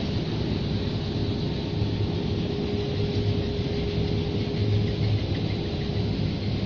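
Rotary drum sawdust dryer running with its hot-air furnace lit: a steady machine drone with a low hum and one constant mid-pitched tone.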